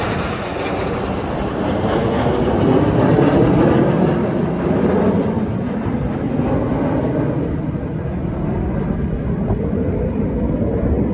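Jet engine roar from a formation of KAI T-50B jet trainers flying over, swelling to its loudest a few seconds in and then easing slightly as the formation draws away.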